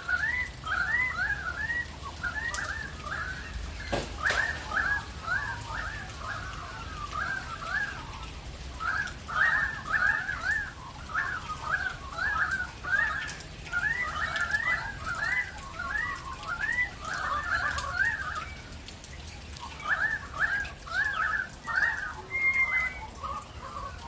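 Australian magpies singing: a long run of quick, repeated warbling notes, two or three a second, broken by a couple of short pauses, with light rain falling.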